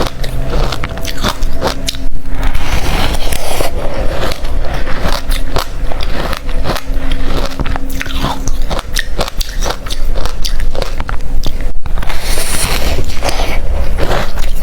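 Hard, refrozen crushed ice being bitten and chewed close to the microphone: a dense, continuous run of sharp crunches and crackles.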